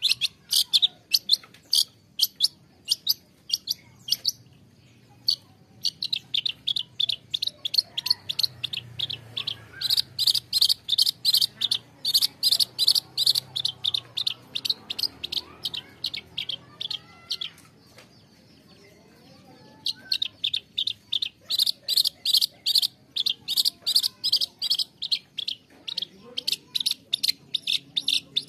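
Long-tailed shrike calling: long runs of short, sharp repeated notes, about four a second, with two brief pauses, one about four seconds in and one about eighteen seconds in.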